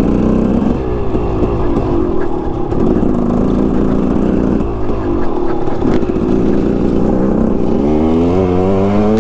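2006 KTM 200 XC's 200 cc single-cylinder two-stroke engine under way, revving up and dropping back several times as it is ridden and shifted, with a long climb in pitch near the end. Wind rumble on the microphone underneath.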